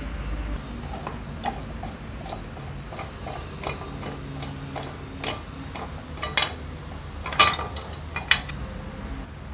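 Light metallic clicks and taps as a wing screw is undone and the aluminium blade-guard cover plate of an old Makita groove cutter is lifted off. Several sharper knocks come in the second half.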